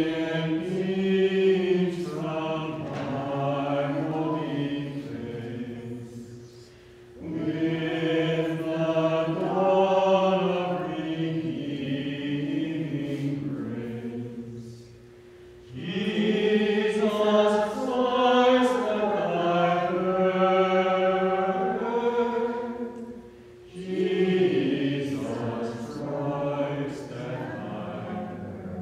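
A group of voices singing a sacred song in four long phrases, with short breaks for breath between them.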